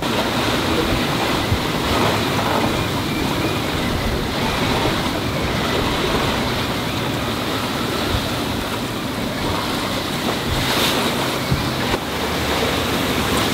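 Steady rush of wind and water from a sailboat under sail in a fresh breeze, with waves washing past the hull and wind buffeting the microphone.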